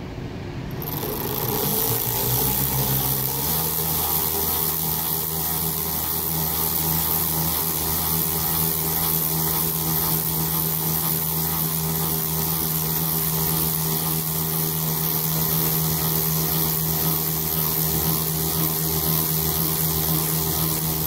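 Cordless drill running continuously, spinning a bolt in its chuck to wind electrical tape off a big roll. Its motor whine picks up speed over the first few seconds, then holds a steady pitch.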